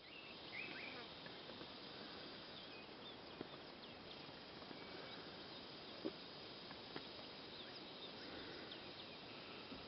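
Faint outdoor bush ambience: a steady hiss with scattered short, high, falling bird chirps and a few soft knocks.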